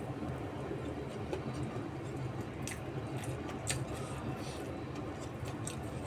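A person chewing food with soft wet mouth clicks and smacks, a few sharper ones standing out, over a steady low hum.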